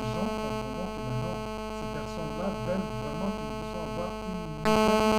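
Loud steady electronic buzz of many evenly spaced tones at once, with a faint wavering voice-like sound underneath; the buzz jumps louder near the end.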